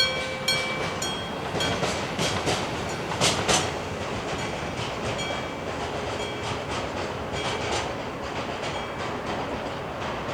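Freight hopper wagons rolling past with a clickety-clack of wheels over rail joints, while an electric-bell level crossing signal rings about twice a second, loudest in the first few seconds.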